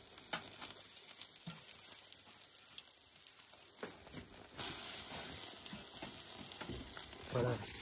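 Chicken and vegetables sizzling faintly on a charcoal kettle grill, with scattered light ticks; the sizzle grows louder and brighter about halfway through.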